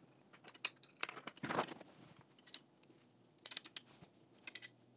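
Faint, scattered clicks and light metallic ticks of an Allen key and small steel screws being worked by hand against an aluminium bracket.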